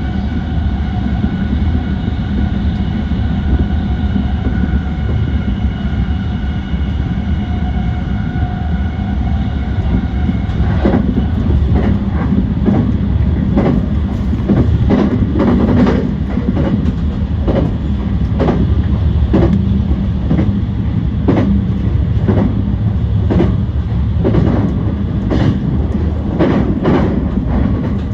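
E235 series electric train running at speed, heard from on board: a steady rumble with a steady whine at first, then from about eleven seconds in the wheels click over rail joints, roughly one or two clicks a second.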